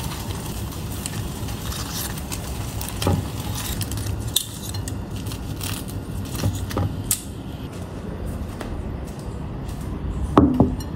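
A knife and metal tongs clicking and scraping against a ceramic plate while cutting flatbread into pieces, with a louder knock near the end.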